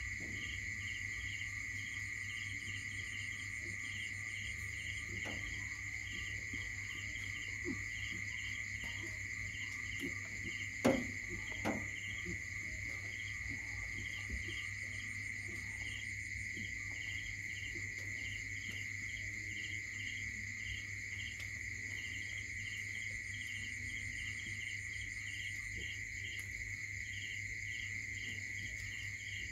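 Chorus of crickets and other insects: a steady high ringing with a pulsing chirp running over it, above a steady low hum. A couple of short knocks about eleven seconds in.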